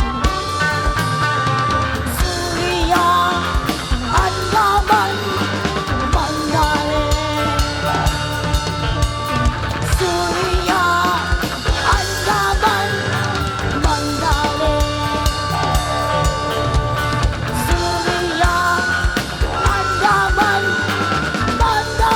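Live rock band playing: drum kit, electric guitar and bass, with a lead line bending in pitch over the top.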